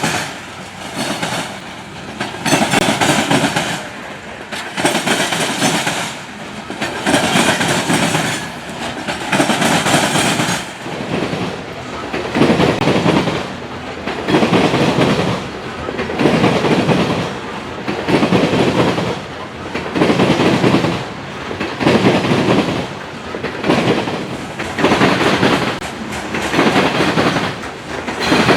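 Freight train cars rolling past at a steady low speed, their wheels clattering in a regular rhythm of about one loud clatter every two seconds as each car goes by.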